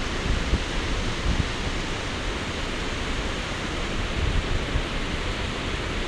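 Steady rush of whitewater from a mountain river's rapids and waterfall, an even noise with no pauses, with an uneven low rumble of wind on the phone's microphone.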